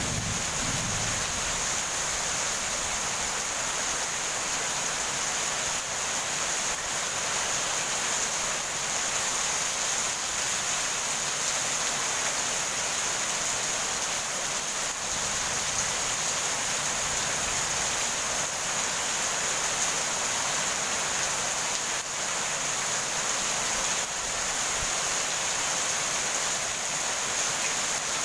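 Steady heavy rain, an even hiss with no breaks. The tail of a thunder rumble dies away in the first second.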